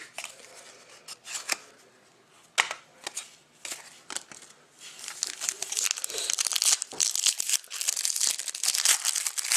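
Plastic wrapping around trading cards crinkling and tearing as it is handled: a few light taps and rustles at first, then steady crinkling from about halfway through.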